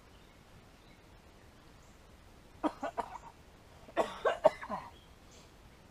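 A man coughing in two short fits, a few quick coughs each, about a second apart, from the second half onward.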